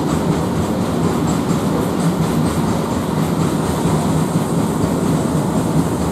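Coal freight wagons rolling past at speed, a steady rumble of wheels on the rails with no horn.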